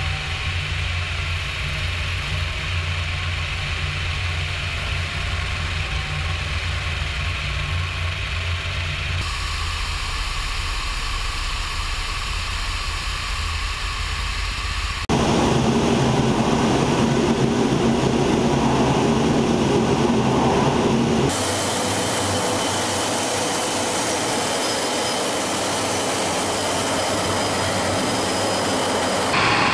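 Military helicopter engines and rotors running in flight, picked up by a camera mounted on the aircraft: a steady drone with wind noise that changes abruptly three times as shots from different cameras follow one another.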